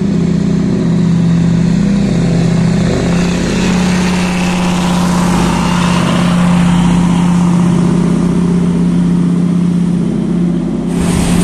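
Diesel multiple unit running past at speed: a steady low engine hum under the rush of wheels on rail.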